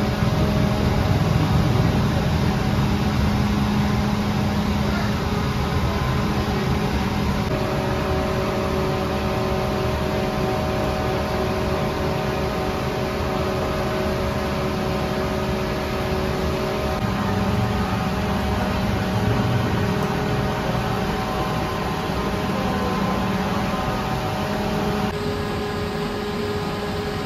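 Bakery machinery running: a steady mechanical drone with several steady hum tones over a rushing noise. The sound shifts slightly near the end.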